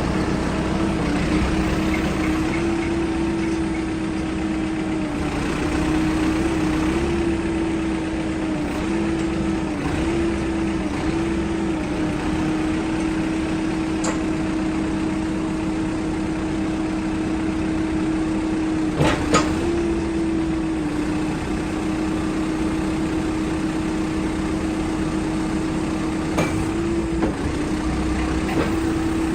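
CASE 695SR backhoe loader's diesel engine running steadily, its pitch dipping briefly now and then. A few sharp knocks cut through, the loudest a pair a little past the middle.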